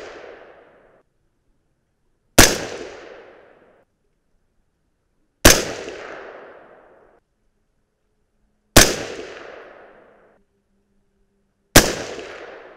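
AR-15 rifle in .223 Remington fired four times, about three seconds apart. Each shot is a sharp crack followed by an echo that dies away over a second or so. The rounds are handloaded 77-grain Sierra MatchKing with 28.0 grains of StaBALL 6.5, the top charge of the ladder.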